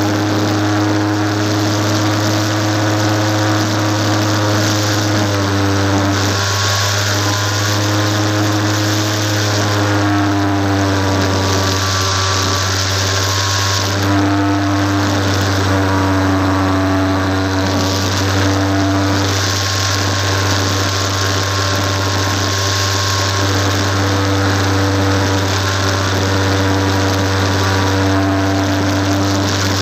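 Electric motor and propeller of a Multiplex FunCub radio-controlled plane, heard on board: a steady whine with many overtones that shifts slightly in pitch a few times as the throttle changes. Underneath it, rushing air swells and fades every few seconds.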